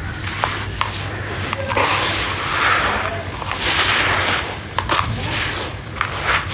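Dusty sawdust-and-sand chunks being crumbled in water: gritty crumbling and crackling noise that swells and fades, with sharp clicks and snaps scattered through it.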